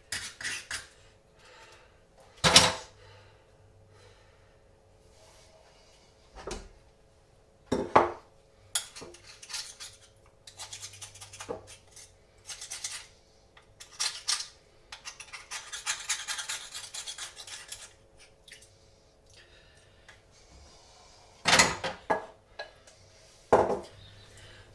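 Oyster shucking by hand: a steel shucking knife scraping against oyster shell as it cuts the meat free, with stretches of scratchy scraping in the middle and a few sharp knocks of shell and knife against the bowl and counter.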